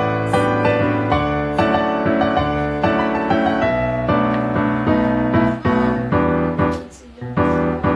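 Background piano music with a steady bass line, several notes a second.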